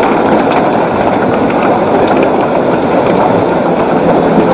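Open water of the Zanskar River rushing steadily past the edge of the ice.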